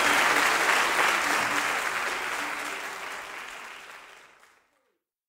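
Audience applause with faint music underneath, fading out steadily to silence about four and a half seconds in.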